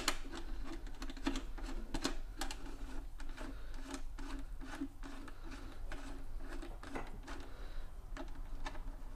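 Irregular light metallic clicks and taps of a small open-end wrench and nuts on a threaded stud, as a double nut is snugged on a plastic taillight housing.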